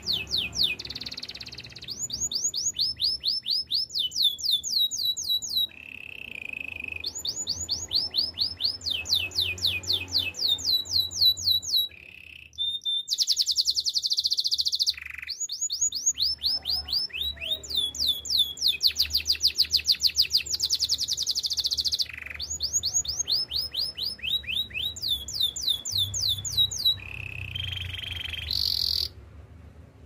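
Domestic canary singing a long song of rapid trills: phrases of a second or two made of quickly repeated falling notes, alternating with short steady whistles, with brief pauses twice.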